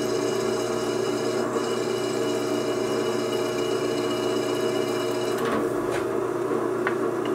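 Drill press running steadily at about 620 RPM while a twist drill bores into aluminum plate. About five and a half seconds in the sound changes as the bit is eased back, and a few light clicks follow near the end.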